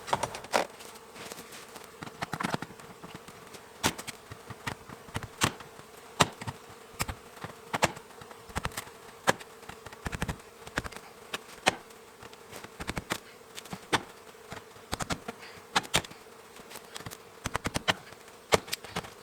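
A large honey bee colony humming steadily, with many sharp clicks and knocks scattered irregularly over the hum.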